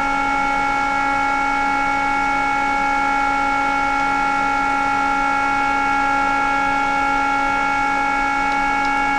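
Steady whine and hum of running satellite test-bench electronics and their cooling fans, with the Ku-band block upconverter powered up and putting out about 18 watts: several constant tones over an even hiss, unchanging in level.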